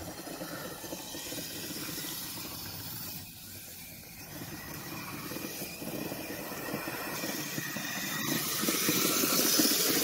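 Kyosho Blizzard RC snowcat's electric drive and tracks running through packed snow, a steady noisy whir that grows louder over the last few seconds as it comes close.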